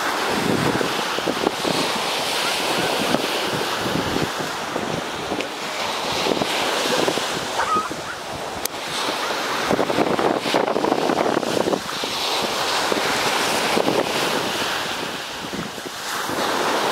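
Ocean surf washing onto a sandy beach: a steady rushing noise that swells and eases every few seconds.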